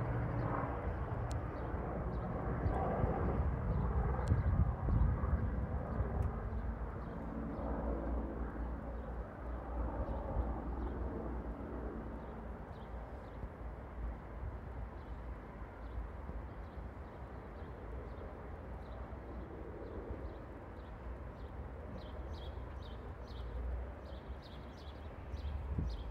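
Rescue helicopter's rotors and turbine engines heard from the ground as it flies over, a steady low thrum that fades gradually as the helicopter moves away.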